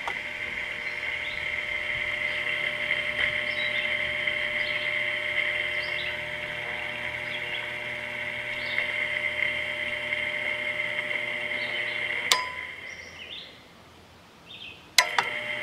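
The fan motor of a 2001 General Electric Quiet Aire air conditioner, freshly fitted with new bearings and running without its fan blades, makes a steady high-pitched whine over a hum. About twelve seconds in a click cuts it off and it spins down; about three seconds later another click starts it running again. The owner finds it a little noisy and wonders whether the new bearings need to break in.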